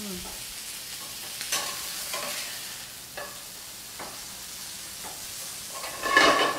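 Food sizzling in a hot stainless sauté pan, with a metal utensil scraping and clinking against the pan several times as pieces are lifted out; the loudest scrape comes near the end.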